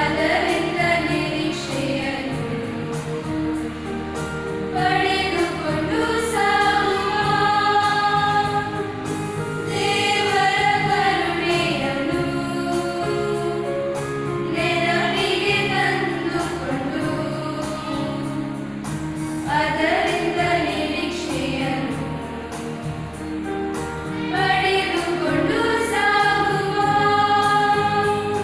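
Girls' school choir singing a Kannada hymn in phrases of about five seconds, accompanied by a Yamaha PSR-S710 arranger keyboard.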